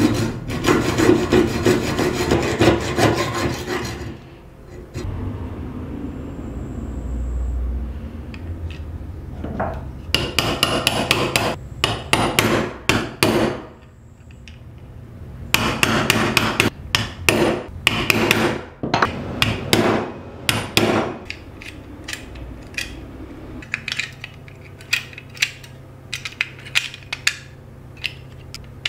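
A hacksaw cuts a small steel screw clamped in a bench vise with quick, even strokes for about four seconds. Later come two runs of rapid hammer blows on a steel punch set in a metal lock case, then scattered lighter metal clicks near the end.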